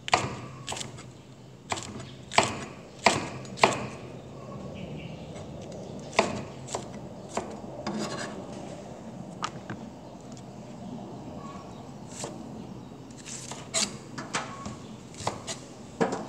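Knife slicing bitter gourd (ampalaya) on a cutting board: irregular sharp knocks as the blade hits the board, bunched in the first few seconds and again near the end, over a low steady hum.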